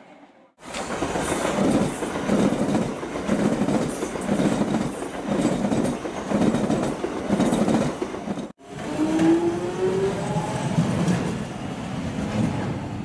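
London Underground Jubilee line train running along the track with a regular clack of wheels over rail joints, about once a second. After a sudden cut, a train's traction motors whine, rising in pitch as it picks up speed.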